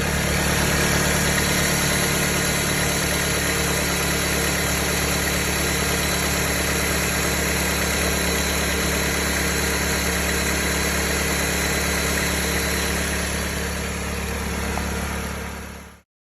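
2007 Dodge Caliber engine idling with a steady whine from a failing alternator, the noise the title calls horrible. It cuts off suddenly near the end.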